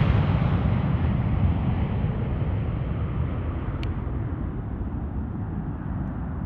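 Boeing P-8A Poseidon's two CFM56 turbofan engines at take-off power as the jet lifts off and climbs away: a loud low rumble with a hiss above it. The sound slowly fades and the hiss dies away as the aircraft recedes.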